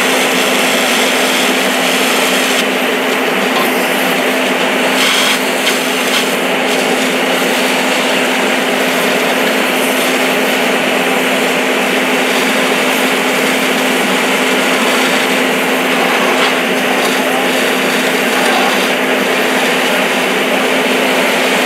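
Steady, loud mechanical drone with a constant hum under a rushing hiss: a fire hose stream spraying water at full flow, with the engine-driven pump that feeds it.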